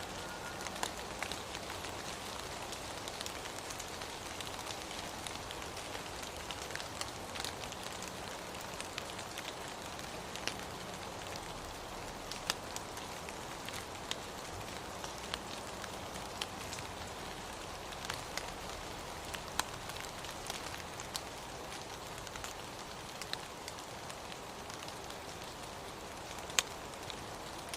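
Steady rain falling, a continuous hiss with many separate drops ticking sharply on a surface.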